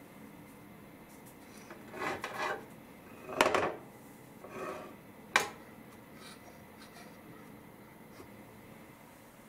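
Handling sounds of a slice of bread being laid into an open single-slice sandwich toaster pan: a few short rubbing, scraping rustles of bread and hands against the pan, and one sharp knock from the pan about five seconds in.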